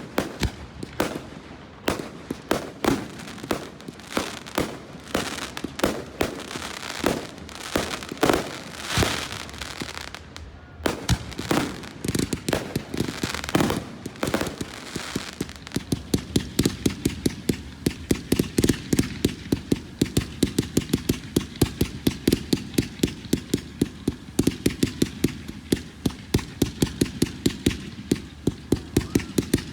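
Fireworks display: irregular shell bursts with crackle, then from about sixteen seconds in a fast, even run of bangs, about three a second.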